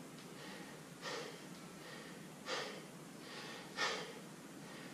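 A kettlebell lifter breathing hard in short, sharp breaths, three in about four seconds, while holding the bells in the rack between jerks.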